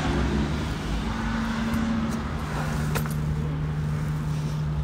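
Steady low engine-like hum over continuous outdoor noise, with a faint click about three seconds in.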